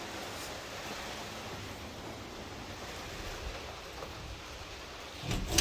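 Steady hiss of rain falling on a greenhouse roof. There is a brief low thump near the end.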